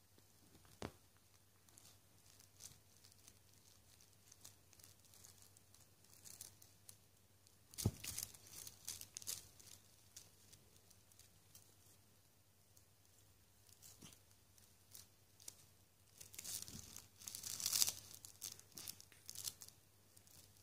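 Fleece blanket rustling and scratching as a British Shorthair cat paws and claws at a feather wand toy on it. There is a short scratchy rustle now and then, one sharp knock partway through, and a denser run of rustling near the end.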